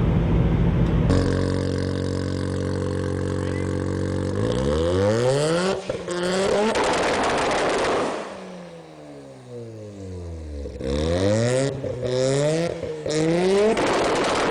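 Car engine running at a steady idle, then revved up and down several times from about four seconds in.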